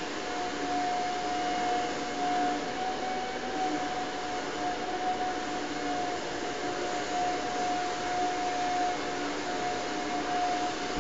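A steady whirring drone with a constant high-pitched hum.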